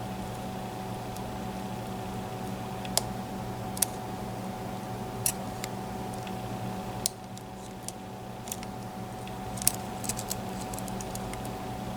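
Lock pick and tension tool working the pins of a Mul-T-Lock MT5+ pin-in-pin cylinder: scattered, irregular sharp little clicks and ticks as pins are lifted and set, over a steady low hum.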